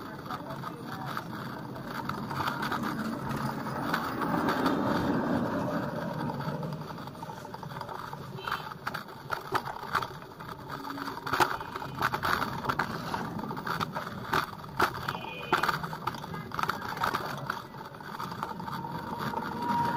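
A bike clattering and rattling as it rides over a rough, bumpy unpaved street, with road and traffic noise throughout. The sharp knocks and jolts come thickest in the second half.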